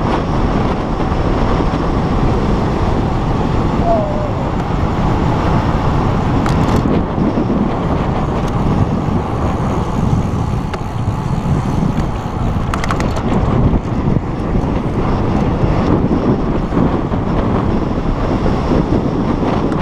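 Steady, loud rush of wind buffeting a GoPro's microphone, mixed with tyre noise on asphalt, as a road bike descends at speed.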